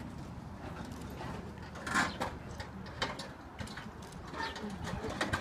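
Scattered knocks and clanks of metal parts and tools as a Model T is put together by hand, the loudest about two seconds in and several lighter ones following at uneven intervals.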